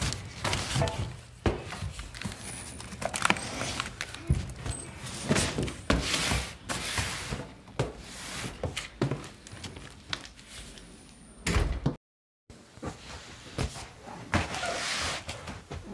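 Irregular knocks, thuds and scuffs as a large cardboard shipping box is carried through a doorway and set down on the floor. The sound drops out briefly about twelve seconds in.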